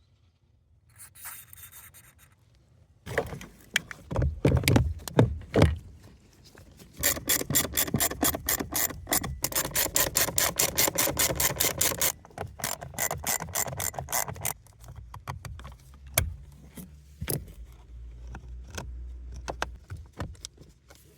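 Blower fan motor of a Honda N-ONE giving a rubbing, scraping noise. It is irregular at first, then becomes a fast, even run of ticks, several a second, for about five seconds, then turns irregular again. This is the abnormal noise from the blower fan motor.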